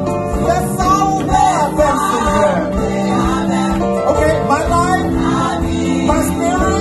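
Gospel choir singing live with instrumental accompaniment.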